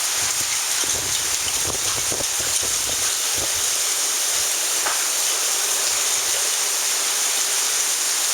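Heavy rain pouring down, with hailstones clattering on hard surfaces. The hits come thick for the first few seconds and then thin out as the hail subsides into steady rain.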